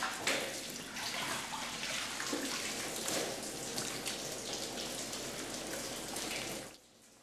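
Whey splashing and dripping as fresh mozzarella curds are scooped out of the vat with a strainer and worked by hand. It is a continuous wet patter of many small splashes, and it cuts off suddenly near the end.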